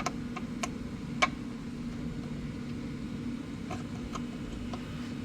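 A car engine idling steadily. Several light clicks come over it, a few in the first second and a few more about four seconds in.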